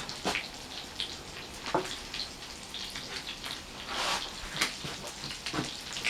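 Burger patty frying in a pan, sizzling with irregular crackles and pops.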